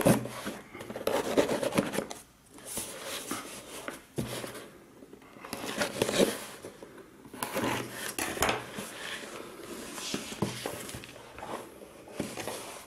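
Taped cardboard parcel being handled and opened by hand: irregular scraping, rustling and tapping of cardboard and packing tape, with a few sharp knocks.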